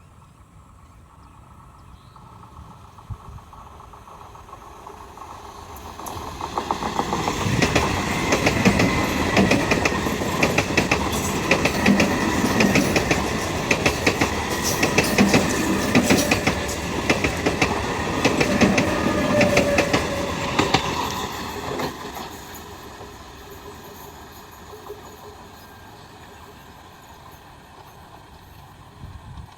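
A train passing at speed: the rumble builds over about a second, then about fourteen seconds of rapid wheel clatter over the rail joints, then it fades away.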